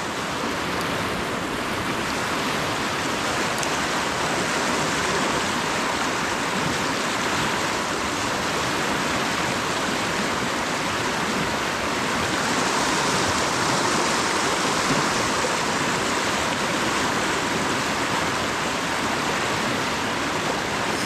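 Rushing river water: the steady, even wash of the fast-flowing upper Jordan River.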